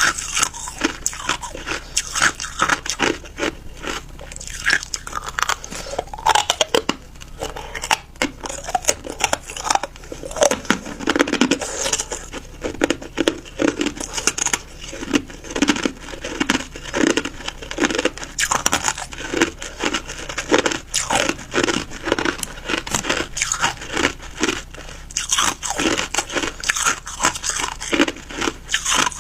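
A person biting and chewing ice, with dense, irregular crunches and cracks several times a second.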